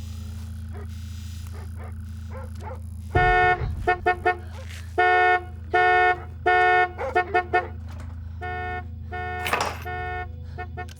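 Morse code sent as a buzzy electronic tone, keyed on and off in long dashes and short dots over a steady low hum. It starts about three seconds in, and a short rushing burst of noise breaks in near the end.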